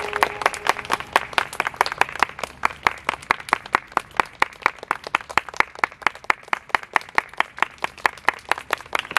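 Applause from a small audience: separate hand claps, several a second, each one distinct.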